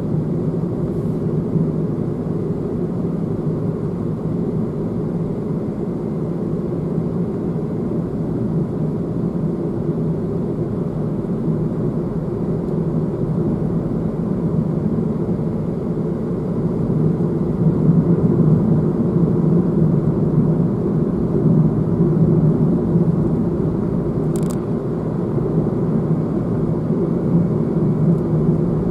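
Steady road and engine noise heard from inside a moving car's cabin, growing a little louder about halfway through.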